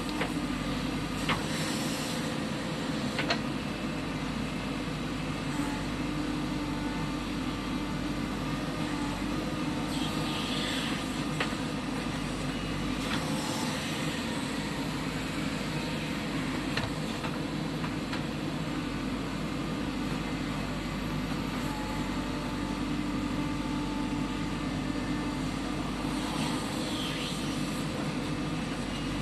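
JCB 3DX backhoe loader's diesel engine running steadily while the machine works, with a few sharp knocks scattered through.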